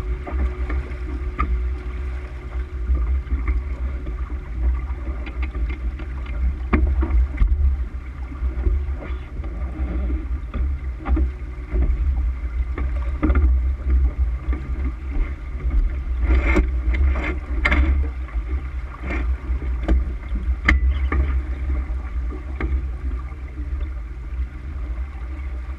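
A sailboat under way, heeled under sail: water rushing along the hull, with wind buffeting the microphone in a steady low rumble. A few short sharp knocks stand out, bunched about two-thirds of the way through.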